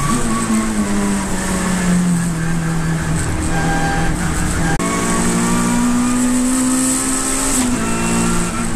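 Saloon race car's engine heard from inside the cockpit. Its note falls as the car brakes for a corner, then rises steadily under acceleration from about five seconds in, with a short drop near the end at an upshift. A steady hiss of road and spray noise runs underneath.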